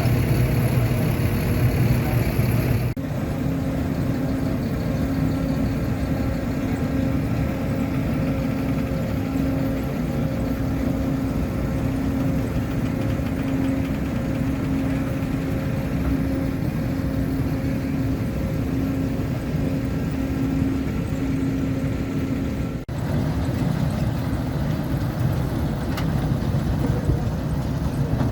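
Engine-driven machinery running steadily, with a humming tone that pulses about once a second. The sound changes abruptly twice, about three seconds in and again near the end.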